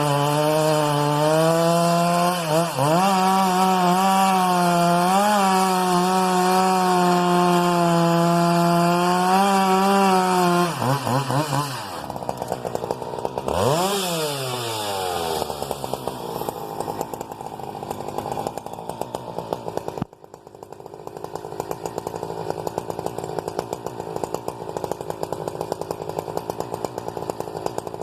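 Husqvarna 395XP single-cylinder two-stroke chainsaw with a 33-inch bar running at high revs while cutting wood, the pitch dipping and recovering under load. About eleven seconds in it comes off the throttle, gives one short rev blip, then settles to a lower, rattling idle.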